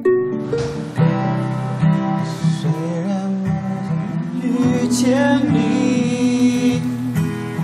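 Acoustic guitar strummed in chords while a voice sings a slow song along with it, the singing coming in about a second in.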